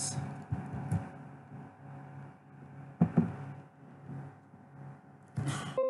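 Two sharp computer-mouse clicks about three seconds in, as a screenshot region is selected, over a steady electrical hum. A short hiss comes near the end.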